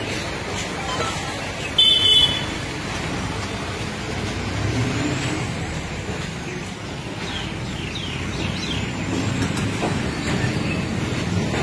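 Steady outdoor background noise with a short, loud, high-pitched toot about two seconds in.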